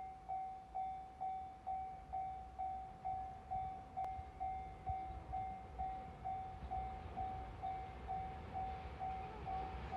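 Japanese level-crossing warning bell ringing, a repeated electronic ding at about two strikes a second that signals an approaching train. A low rumble builds underneath toward the end.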